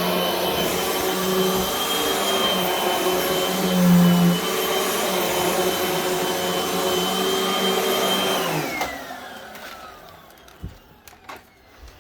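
Hoover WindTunnel High Performance upright vacuum running steadily with a high whine. It is switched off about eight and a half seconds in, and the motor winds down with a falling whine. A few light knocks follow near the end.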